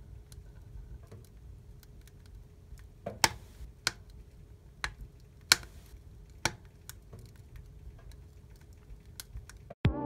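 Wood fire burning in a fireplace stove, crackling with scattered sharp pops, a handful of louder ones between about three and seven seconds in. The sound cuts off abruptly near the end.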